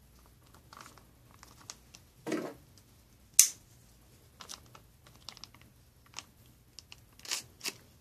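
Crinkling and rustling of a plastic MRE blackberry jam pouch being handled, with scattered small clicks. A sharp snap comes about three and a half seconds in.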